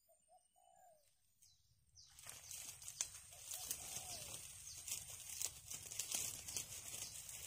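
Quiet outdoor ambience: a few soft bird calls, then, from about two seconds in, a steady crackling rustle full of small clicks.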